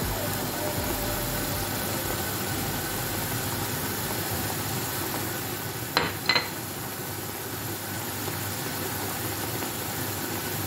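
Chopped oyster mushrooms and green peppers sizzling steadily in a frying pan, with two sharp clicks about six seconds in.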